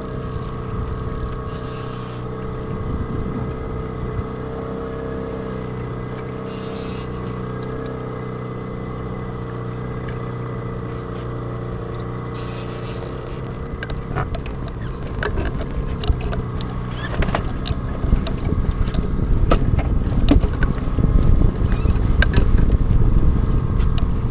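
Small outboard motor running steadily at trolling speed, a constant hum, with a few short hisses in the first half. In the second half a rough wind rumble on the microphone builds and grows louder over the engine.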